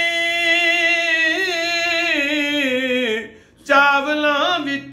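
A man singing a Punjabi ghazal unaccompanied. He holds a long note that slides down through ornamental turns, takes a short breath about three seconds in, then starts a new phrase.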